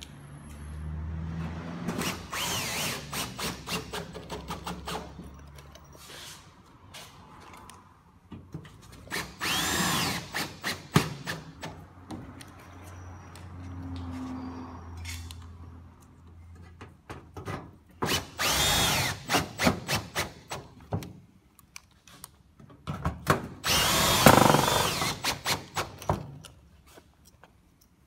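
Cordless drill with a hex driver bit driving hex-head roofing screws through steel ridge capping into corrugated roof sheeting. There are four runs of a few seconds each, and each whine rises as it spins up and drops off as the screw seats.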